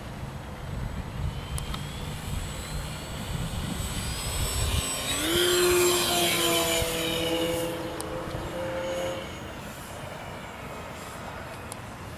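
Electric RC model plane (E-flite Power 32 motor, 11x10 APC propeller) on its takeoff run. The motor-and-prop whine climbs in pitch and is loudest as the plane lifts off and passes close, then fades as it climbs away. A low rumble underneath stops about five seconds in.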